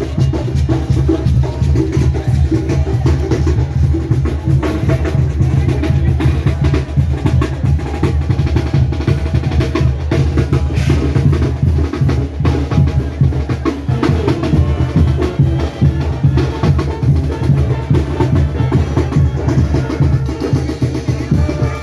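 Live Mexican banda music, a brass band with its drums to the fore: dense, steady drum hits over a deep bass line.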